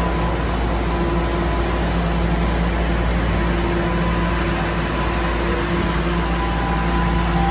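Steady hum and whir of a Toronto subway car's air conditioning and onboard equipment while the train stands at a station with its doors open, heard from inside the car: an even rush with a few constant tones underneath.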